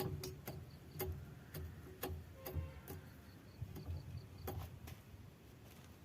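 Irregular sharp metallic clicks and taps as wheel nuts are run onto the studs and snugged up with a wheel spanner.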